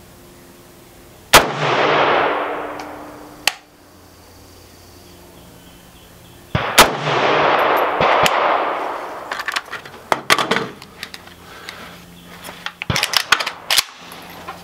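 Two rifle shots from a Zastava N-PAP 7.62×39 mm AK-pattern rifle, about five seconds apart, each followed by a long rolling echo that fades over about two seconds. In the last few seconds comes a run of sharp clicks and knocks.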